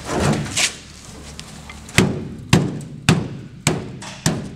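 Five sharp knocks, evenly spaced about half a second apart, as the new sheet-steel floor pan is struck while being fitted against the car body. A brief rustle of the panel being handled comes just before.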